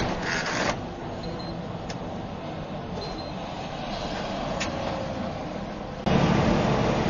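Semi truck's engine and road noise heard inside the cab while driving on the highway: a steady drone with a few faint clicks. About six seconds in it switches abruptly to a louder, deeper vehicle drone.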